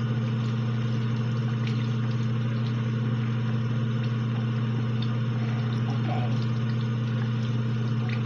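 Tap water running into a sink as a makeup brush is rinsed, an even rushing noise over a steady low hum, with a few faint small clicks.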